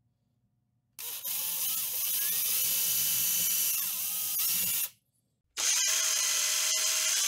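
Power drill with a long thin bit boring lengthwise through a carved wooden lure body, starting about a second in and running in two spells of a few seconds with a short pause between, its pitch shifting as the speed changes.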